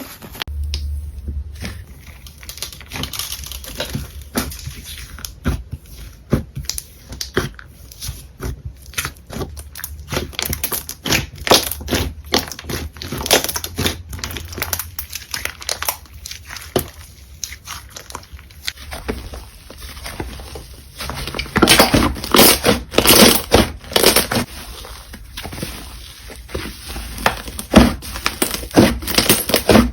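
Hands squeezing, poking and pressing slime: a dense stream of short crackling and crunching clicks, busier and louder in the last third.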